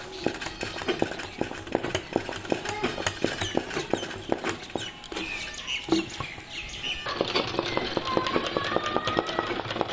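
Domestic sewing machine running a zigzag stitch, its needle clicking rapidly and evenly, easing off briefly about two-thirds of the way through.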